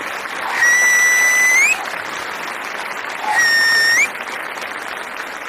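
Studio audience applauding, with two loud whistles cutting through it. Each whistle is held on one note and then slides upward at its end.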